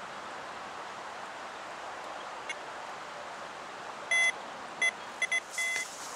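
Electronic carp bite alarm sounding about five short, high beeps from about four seconds in, the last one a little longer, set off as the line is handled at the rods. A steady background hiss runs underneath.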